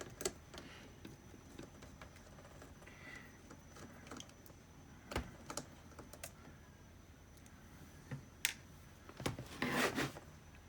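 Small Phillips screwdriver and plastic laptop parts giving scattered light clicks and taps as the screen's mounting screws are backed out and handled.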